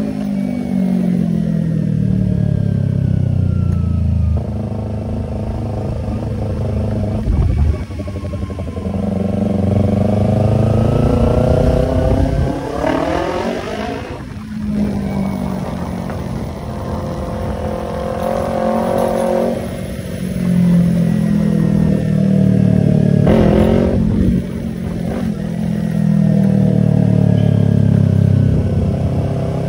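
Yamaha YZF-R25's 249 cc parallel-twin engine running through an aftermarket Tiger exhaust, its pitch climbing under acceleration and dropping back again and again as the bike is ridden and the throttle is opened and closed.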